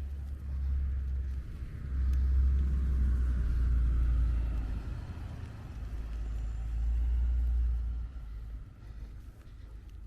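Road traffic passing on a snowy city street: a low rumble that swells twice and fades near the end.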